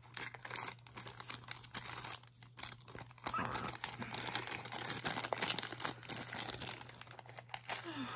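Thin clear plastic zip-top bag crinkling and rustling as hands handle jewelry inside it, getting louder about three seconds in.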